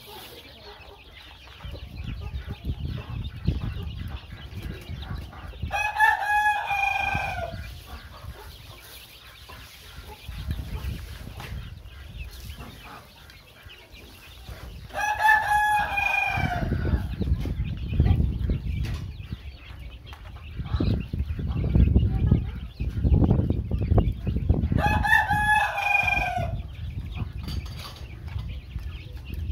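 A rooster crows three times, about ten seconds apart, each crow about a second and a half long, while chickens cluck. A low rumble runs under much of it.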